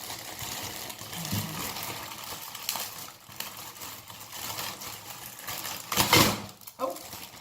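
Plastic packaging rustling and crinkling as a hair dryer and its attachments are unwrapped, with a louder burst of rustling about six seconds in.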